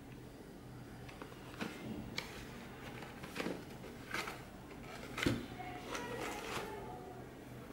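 Cardboard sunglasses box being handled and its end flap pried open: a series of short paperboard taps, scrapes and rustles, the sharpest about five seconds in, over a faint steady low hum.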